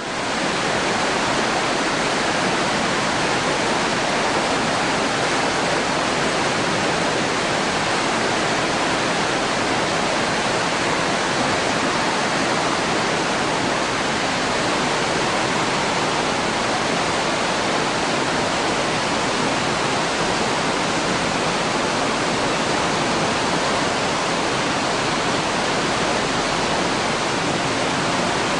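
Himalayan river in flood, swollen and silt-laden, rushing past in a steady, loud, unbroken wash of water noise.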